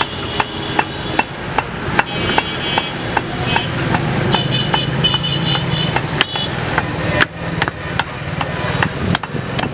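Butcher's cleaver chopping goat meat and bone on a wooden log chopping block: a run of sharp chops, roughly two a second. Behind them a motor vehicle engine runs, louder in the middle, and a few short high beeps sound.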